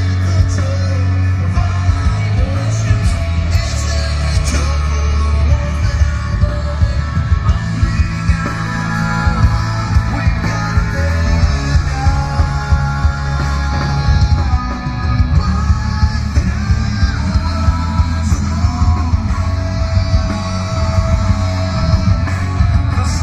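Live rock band playing loud through the PA during a sound check: distorted electric guitars, bass and drums, with a singer's vocal over them.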